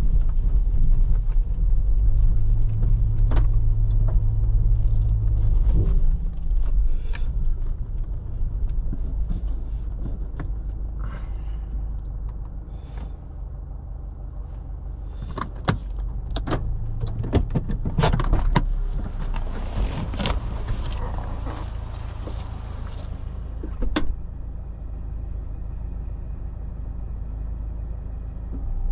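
Car driving, with a steady low engine and road rumble. Scattered knocks and clicks come through the middle, and a hiss rises for a few seconds about twenty seconds in.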